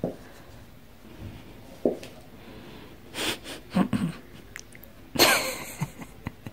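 Two long-haired cats in a standoff, hissing at each other in a few short bursts, with the loudest and longest hiss about five seconds in.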